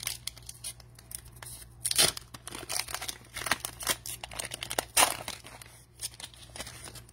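The foil wrapper of a football trading-card pack being torn open by hand: irregular crinkling and tearing, with sharp crackles about two seconds in and again about five seconds in.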